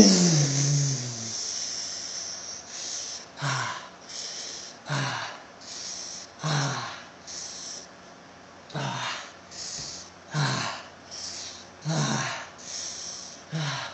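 A man's mouth-made sound effects for an anime fight: a loud falling shout with a hiss at the start. Then a steady alternation of hissing breaths and short low grunts, each about one and a half seconds apart.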